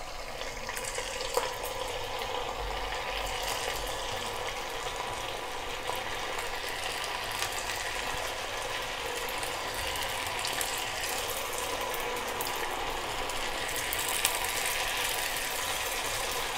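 Batter-coated cauliflower florets deep-frying in hot oil: a steady sizzle with dense, fine crackling.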